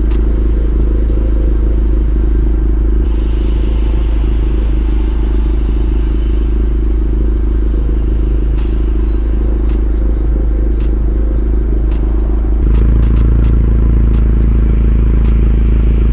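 Honda Civic engine idling steadily, with a few sharp clicks over it. About thirteen seconds in, the idle note shifts and gets a little louder.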